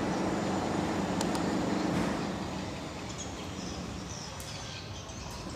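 A steady engine drone that fades out over the first few seconds, leaving a faint background hiss with a few light clicks.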